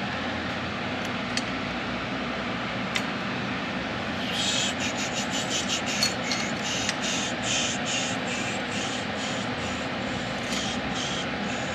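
A run of short, quick scraping strokes, a couple a second, starting about four seconds in and stopping near the end, over a steady background hum.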